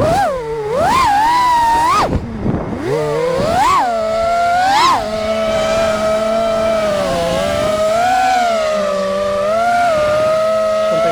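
A 5-inch FPV freestyle quadcopter's brushless motors whining, the pitch surging up and down several times with quick throttle punches in the first half. It then holds a steadier, gently wavering whine and climbs again at the end.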